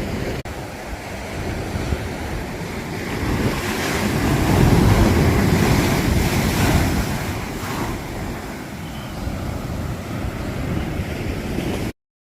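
Ocean surf breaking and washing ashore, with wind buffeting the microphone; the wash swells about a third of the way in, eases off, and the sound cuts off suddenly near the end.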